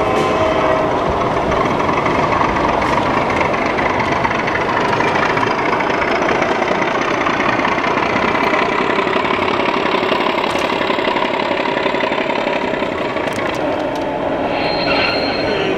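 Model diesel road-switcher locomotive running along the layout track: a steady engine-like rumble with rolling noise from the wheels on the rails.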